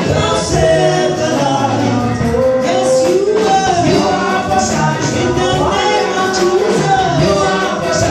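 Gospel music: several voices singing held, sliding notes over an instrumental accompaniment with light percussion.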